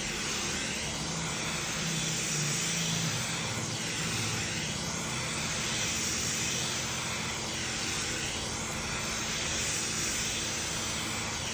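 Quick 861DW hot air rework station blowing a steady rush of hot air, heating a phone screen so it can be pried off.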